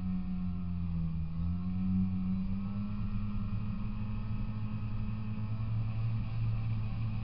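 Polaris Indy 340 snowmobile's two-stroke engine running steadily, its pitch dipping and rising slightly.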